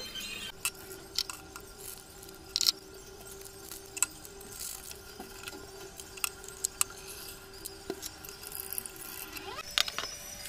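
Light clinks and knocks of a ceramic mug and kitchenware being picked up and set down, the loudest about a quarter of the way in, over a steady hum.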